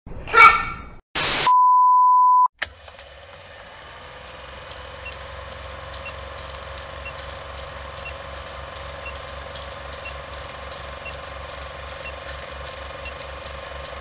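A layered opening sound sequence: a short pitched sound, a brief burst of static, and a steady beep lasting about a second. After a click, a steady electrical hum with fast, even ticking, about four a second, slowly builds.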